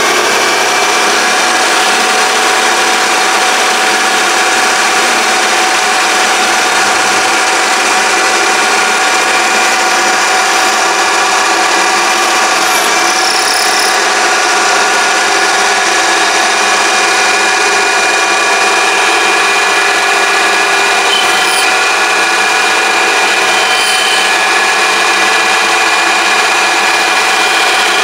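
Mini lathe running steadily: a steady motor whine over a hissing noise.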